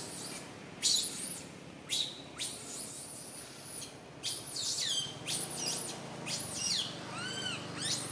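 Baby macaque crying with repeated high-pitched squeals and screams. Several short, sharp cries come first, then a quick run of short rising-and-falling wails near the end.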